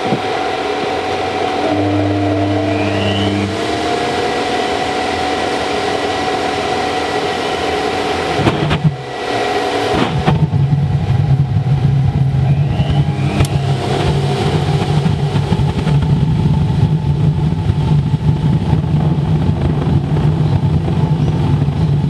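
Waste oil burner's blower running with a steady hum, then about ten seconds in a louder, deep rumble sets in and holds as the burner fires on gas for its preheat.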